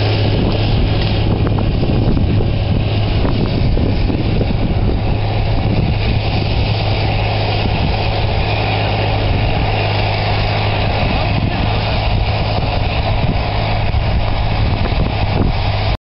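Large tractor's diesel engine running steadily as it pulls a sub-soil/bedding plow through the ground, a constant low drone that cuts off abruptly near the end.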